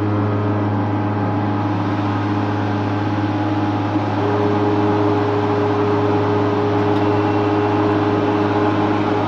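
Beaver 620 four-sided planer's cutter-head motors humming steadily as they are switched on one after another. About four seconds in another motor comes in with a small click and a new, higher steady tone.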